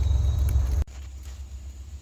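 Low rumble of wind noise on the microphone that cuts off abruptly just under a second in, leaving a much quieter outdoor background.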